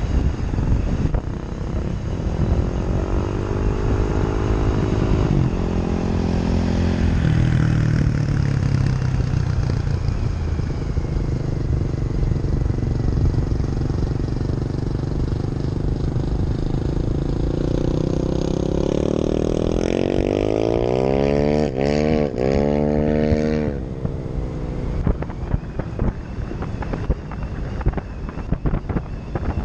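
Vehicle engine under way at speed, climbing in pitch as it accelerates, then holding steady. Later it climbs again and revs sharply up and down for a couple of seconds before dropping back, leaving a choppy crackling noise in the last few seconds. Wind buffets the hood-mounted microphone.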